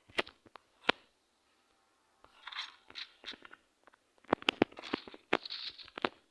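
Irregular sharp clicks and short bursts of crackling rustle.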